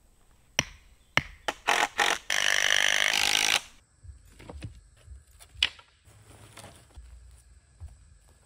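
A hammer knocking wooden stakes into the ground, several sharp strikes. Then comes a loud steady buzzing noise lasting over a second, followed by softer thuds of a post-hole digger biting into the dirt.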